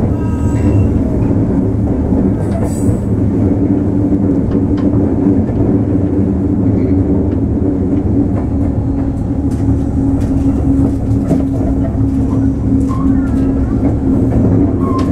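JR 103-series electric train heard from inside the passenger car while running at a steady speed: an even rumble of the wheels on the track under a constant hum, with a few faint clicks.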